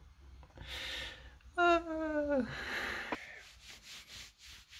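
A man draws a breath, then lets out a voiced sigh of about a second that falls in pitch, followed by a breathy exhale: a contented, full-stomach sigh.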